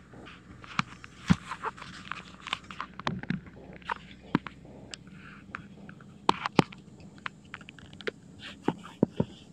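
Irregular knocks, clicks and crunches from a phone being handled and jostled while it is carried.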